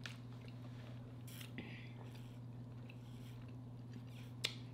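Faint, scattered mouth clicks of someone chewing food, with one sharper click near the end, over a low steady hum.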